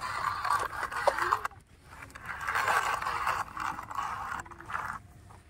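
A plastic toy dump truck loaded with soil scraping and crunching over loose dirt in two stretches, a short one and then a longer one, with a brief pause between.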